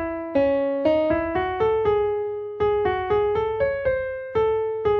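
Background piano music: a slow melody of struck notes, one or two at a time, each fading before the next.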